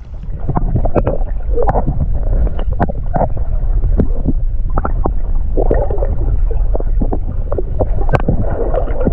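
Water heard through a submerged camera: a steady low rumble with gurgling bubbles and scattered sharp clicks and knocks.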